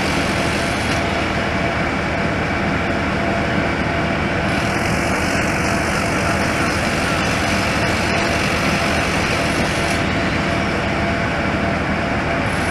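Heavy demolition machinery on the site running steadily, a continuous even noise with no distinct knocks or impacts.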